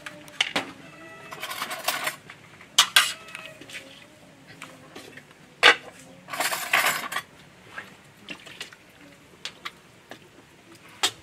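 Plates and spoons clinking and scraping as food is served and eaten: a handful of sharp clinks, the loudest nearly six seconds in, and two longer scraping stretches.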